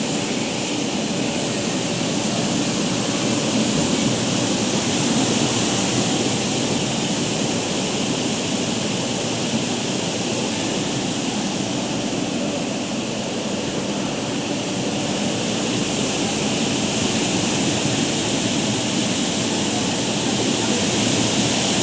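Fruit and vegetable washing machine running: a steady rush of churning, splashing water over a low machine hum.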